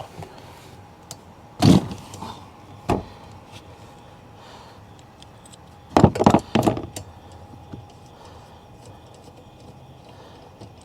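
Sharp metallic clicks and clacks from a 15 mm wrench or socket working the wiper arm's retaining nut: one about two seconds in, another near three seconds, then a quick cluster of several around six to seven seconds in.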